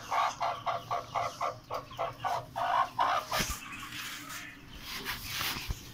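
Broody hen clucking in a rapid run, about five short clucks a second for some three seconds, followed by rustling.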